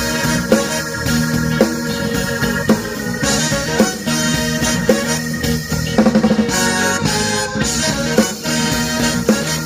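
Live band playing an instrumental go-go funk groove: drum kit keeping a steady beat with guitar and sustained horn or keyboard chords, between sung verses.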